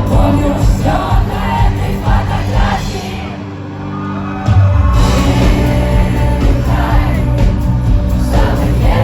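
Live rock band playing a song with singing. The bass and drums drop away briefly near the middle, then the full band comes back in loudly about four and a half seconds in.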